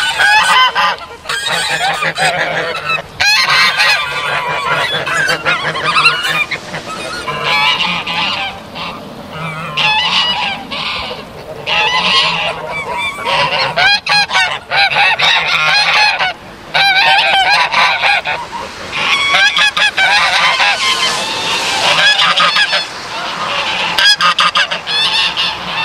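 A group of geese honking: many loud, overlapping honks follow one another almost without pause.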